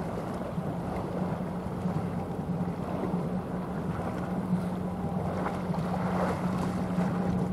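Steady low drone of a general cargo ship's diesel engine passing across the water, over wind noise on the microphone.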